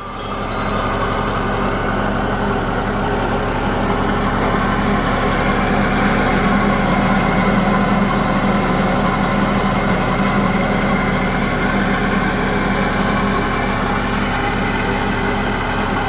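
Wood chipper running steadily with its drive, a loud, even engine-like drone that comes up within the first second, with no wood being chipped.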